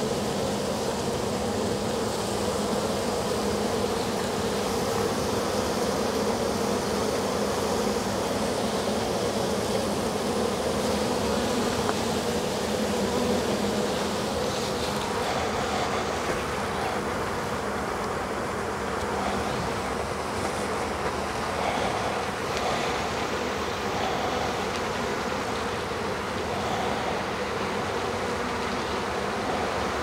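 Steady hum of a honey bee swarm, many bees buzzing around the cluster and the hive box.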